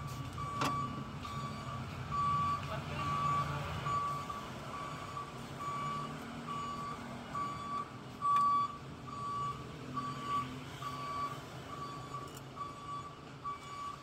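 An electronic warning beeper sounds one short steady high tone about every 0.8 seconds, the pattern of a vehicle's reversing alarm. A low engine rumble runs under it for the first few seconds, with a few light clicks.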